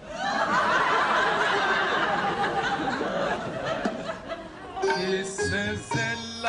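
Studio audience laughing, starting suddenly and loud. About five seconds in, sitar music with plucked notes begins.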